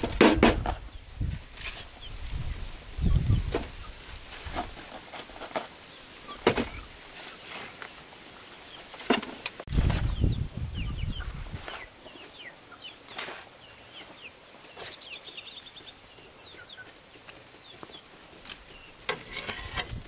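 Chickens clucking, with short high chirps in the second half, among scattered knocks and scrapes of work.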